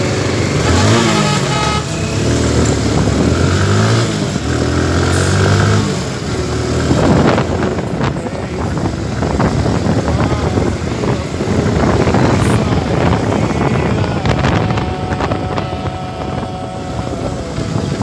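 Motorcycle engine pulling away, its pitch rising and dropping through gear changes in the first six seconds or so, then steady running noise as it rides along.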